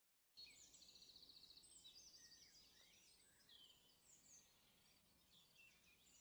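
Faint birdsong: small birds chirping and whistling, with a rapid trill in the first couple of seconds.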